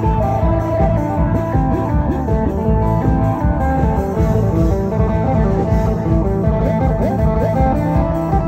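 Instrumental music led by a plucked string instrument, with a steady beat.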